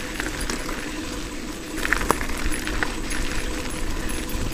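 Mountain bike rolling over a gravel path: tyre crunch with many light metallic clinks and rattles from the bike, louder from about two seconds in.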